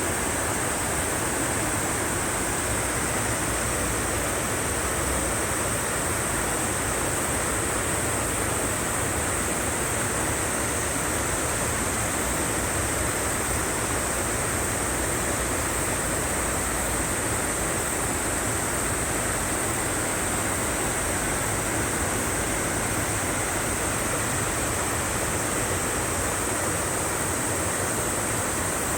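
Valley stream water rushing, a steady even rush with no breaks.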